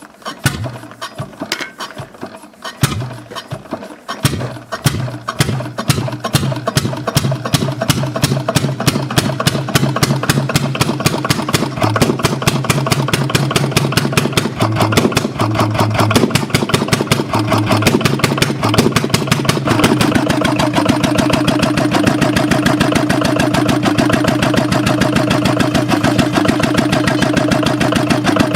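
An old engine starting: a few slow, uneven firing strokes at first, then it catches and runs, the beat quickening and settling into a steady run about twenty seconds in.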